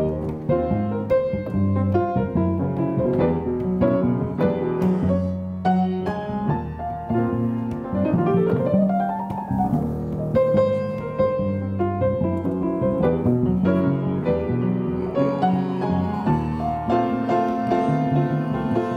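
Piano-led instrumental music: quick runs of keyboard notes over a steady bass line, with a rising sweep about halfway through.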